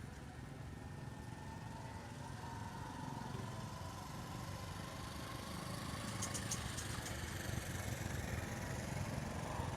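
Electric RC plane's 2212 1400kv brushless motor and propeller droning in flight, a faint whine whose pitch drifts slowly and which grows louder toward the end.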